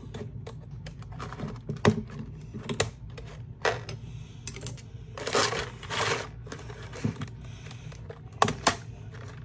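Hard plastic blister packaging being handled and cut open: a scattered string of sharp clicks and snaps, with a crinkling rustle about five seconds in.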